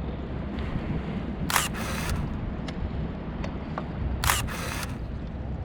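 Camera shutter firing twice, about two and a half seconds apart, each a quick two-part snap, over a steady low rumble.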